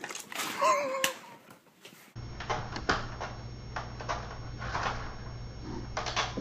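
A short wavering cry and a few knocks in the first two seconds. Then a cat clinging to and climbing a sliding screen door, its claws catching the mesh and knocking and rattling the door several times over a steady low hum.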